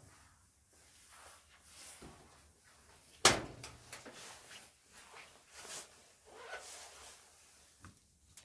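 Scattered handling noises with one sharp knock about three seconds in, the loudest sound.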